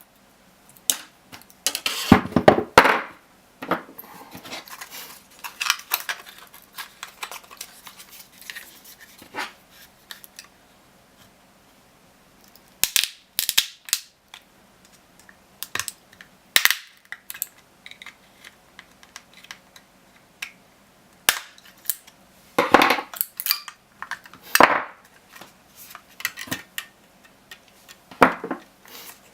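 A laptop battery pack being prised apart by hand and with tools to free its 18650 cells: irregular sharp snaps and clicks of plastic and metal, with scraping and handling noise between them.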